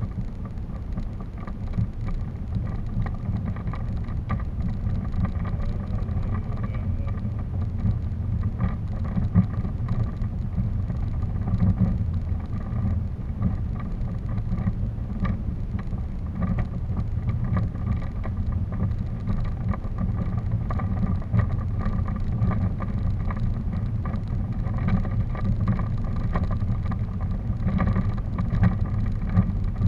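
Steady low rumble of wheels rolling over a dirt forest path, with scattered small knocks and rattles.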